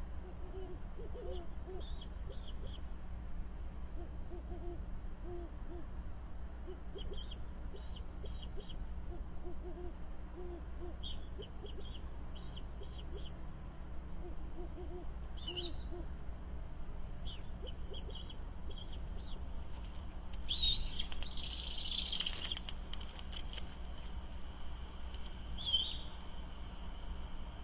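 Great horned owl hooting, repeated groups of low hoots for roughly the first sixteen seconds. Short high-pitched calls come and go from an unidentified second animal, with a louder harsh screech about twenty seconds in.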